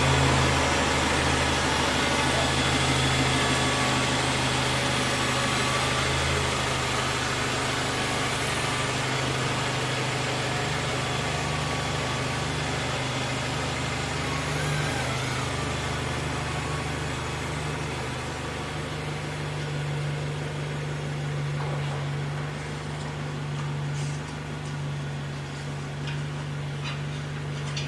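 A 2005 Mazda 3's 2.3-litre four-cylinder engine running steadily, a low hum under a steady hiss, on a test drive to check the new coolant reservoir for overflow.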